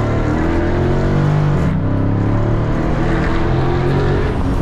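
The 6.4-litre HEMI V8 of a straight-piped 2013 Dodge Charger SRT8 is under full-throttle acceleration, heard from inside the cabin. The engine note climbs steadily in pitch, drops at an upshift just under two seconds in, climbs again, and shifts once more near the end.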